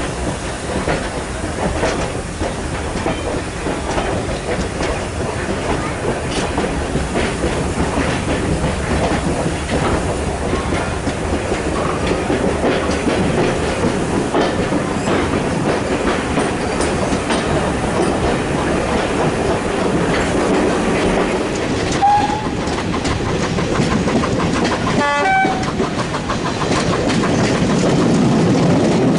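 Railway carriage running along the line: steady wheel rumble with the clickety-clack of wheels over rail joints, and a brief higher pitched sound about 25 seconds in.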